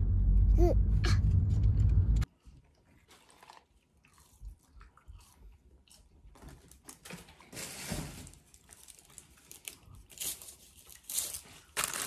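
Low car-interior rumble with a child's brief voice, cut off about two seconds in. Then paper fast-food wrappers rustle and crinkle as a meal is unwrapped and eaten, the crinkling loudest near the end.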